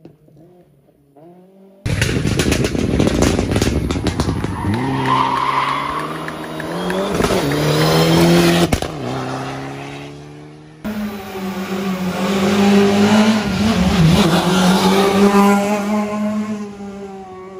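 Rally cars at full throttle on a tarmac stage, heard in a few cut-together passes. The first is a Mitsubishi Lancer Evolution's turbocharged four-cylinder revving up hard through the gears as it passes. Then another rally car's engine climbs and drops in revs as it drives past. A fainter engine is heard in the first two seconds, before the loud passes begin.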